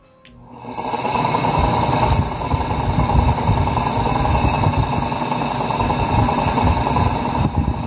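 Small capacitor-run exhaust fan switched on with a click of its pull-cord switch, spinning up over about a second and then running steadily with a rush of air from its plastic blade.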